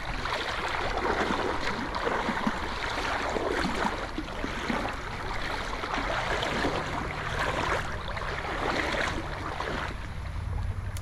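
River water rushing and splashing in a steady but surging wash, with a low steady hum underneath.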